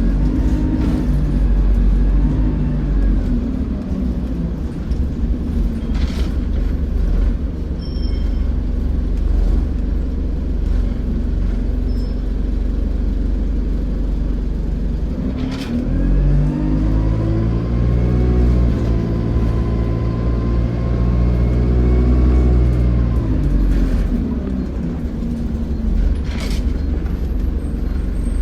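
Alexander Dennis Enviro200 single-deck bus's diesel engine running, its note rising about halfway through as it pulls away, holding for several seconds, then falling off. A few sharp clicks or knocks cut in at intervals.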